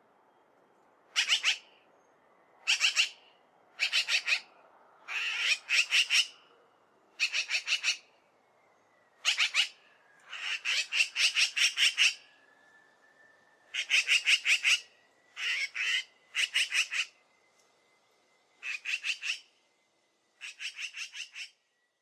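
Eurasian magpie chattering: about a dozen bouts of its harsh, rapid rattle call, each a quick run of several notes, with one longer rattle of about two seconds midway.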